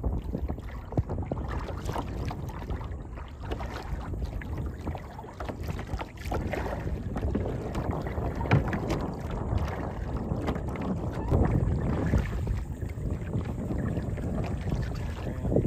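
Kayak on the water: paddle strokes and water splashing, with scattered light knocks or clicks and wind rumbling on the microphone.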